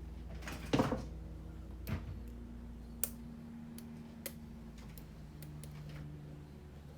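Small metallic clicks and taps as a lock pick and tension wrench work the pins of a Sargent pin-tumbler lock cylinder, with a louder rattling clack just under a second in and another sharp click about three seconds in.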